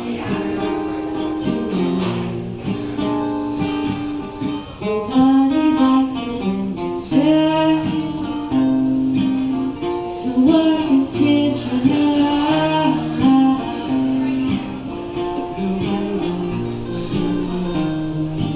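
Acoustic guitar played live, with a woman singing over it.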